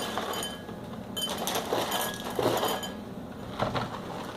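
Light clinking of dishes: a few ringing clinks, mostly in the first half and fewer near the end.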